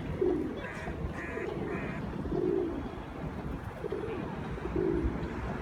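Feral pigeon cooing, a short low coo repeated about once a second.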